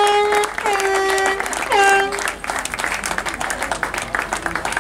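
Crowd applauding and clapping, with three loud blasts of a horn over it. Each blast starts with a quick downward slide and then holds a steady tone. The last blast ends about two seconds in, leaving only the clapping.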